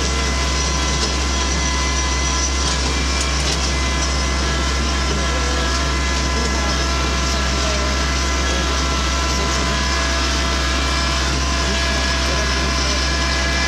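A small vehicle's engine running steadily at a constant speed. It makes an even low drone with a steady whine over it, and does not speed up or slow down.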